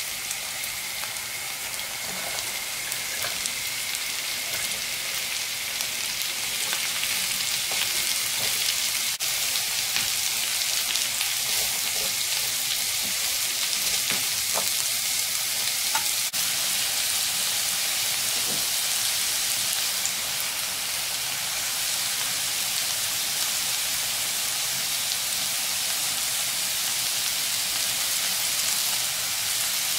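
Diced onions and carrots sizzling steadily in hot oil in a non-stick frying pan, with a few light scrapes and taps of a spatula as the vegetables are stirred.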